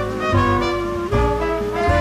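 Background music: an instrumental tune of held notes over a bass line.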